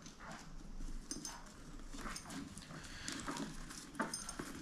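Faint fumbling with a motorcycle helmet's chin-strap snap-lock buckle: scattered small clicks and soft rustling of the strap and fittings, with a sharper click about four seconds in.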